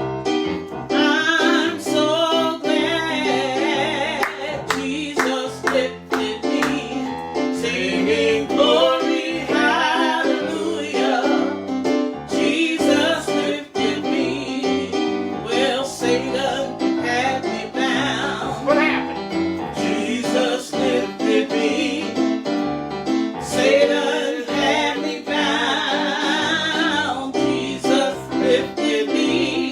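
A voice singing a slow song with a wavering vibrato, accompanied by piano or keyboard chords.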